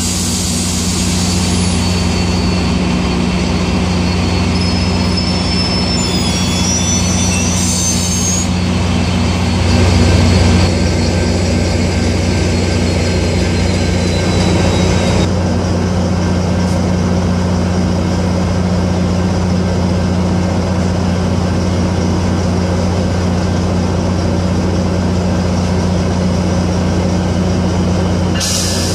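Diesel locomotive engines running steadily with a deep hum, as a Metrolink commuter train moves alongside. In the first several seconds a high, wavering squeal from the train's wheels rises and falls over the engine sound.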